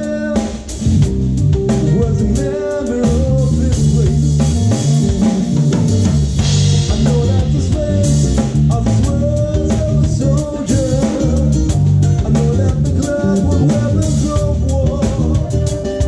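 Live band playing a slow song: drum kit, electric bass and acoustic guitar, with a wavering lead melody over them.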